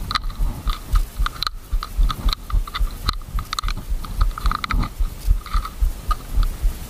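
Clear plastic blister packaging crinkling and crackling in irregular short clicks as a frog fishing lure is worked out of it by hand, over a low rumble of handling on the microphone.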